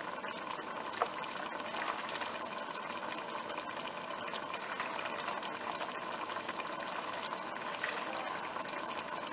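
Tomato and onion sauce simmering in a stainless steel pot, bubbling with many small pops and ticks over a steady rushing hiss, with one slightly sharper click about a second in. The sauce is heating toward the boil.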